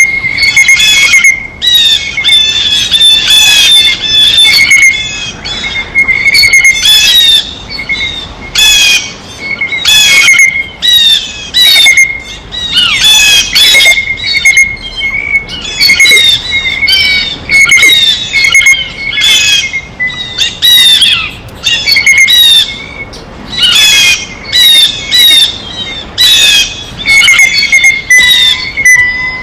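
Blue jays calling over and over at a feeder: loud, harsh squawking calls, one after another with brief gaps, and a short clear note recurring between them.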